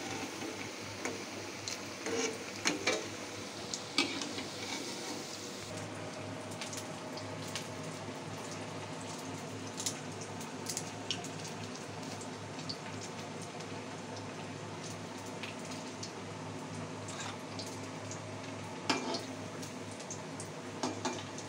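Hot oil sizzling as roti-and-potato cutlets deep-fry in a steel kadai, with a slotted spoon clicking against the pan several times. About six seconds in the sound changes abruptly to a duller steady background with an occasional clink of metal.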